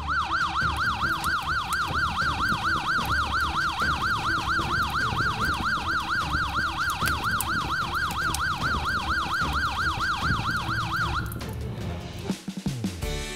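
Electronic fire-engine siren wailing up and down quickly, about four cycles a second, over a low rumble. It cuts off suddenly about eleven seconds in.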